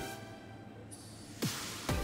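Electronic background music. It drops away for about a second, then comes back with two falling swoops near the end.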